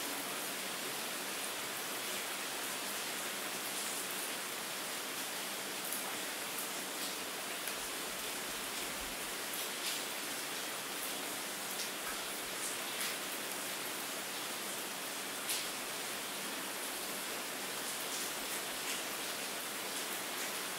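Steady rain: an even hiss, strongest in the high range, with scattered sharp drop ticks, one a little louder about fifteen seconds in.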